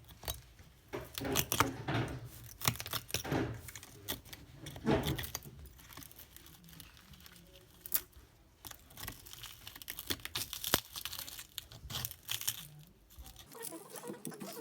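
Handling noises from phone repair work: irregular small clicks, scrapes and crinkling at a close range.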